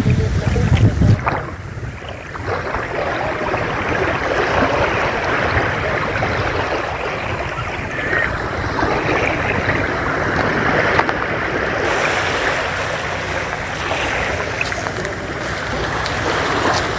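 Sea waves washing onto a beach, a steady hiss of surf that swells and eases. Wind buffets the microphone with a low rumble for about the first second.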